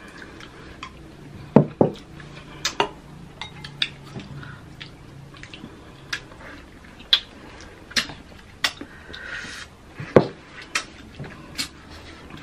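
Metal spoons clinking and scraping against a glass bowl of whipped cream, in irregular sharp clinks with a few louder knocks, along with close-miked sounds of eating juicy fruit.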